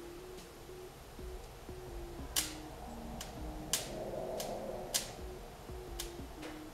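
Quiet background music, a simple tune of steady notes, under the handling of a vinyl car-window decal: a few sharp clicks and a soft rustle about four seconds in as its paper backing and transfer tape are peeled.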